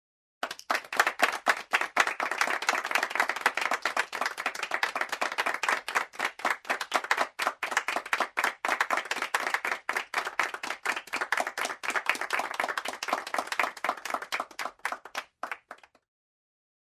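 Applause: many hands clapping together in a dense, steady patter. It starts about half a second in and thins to a few last claps near the end.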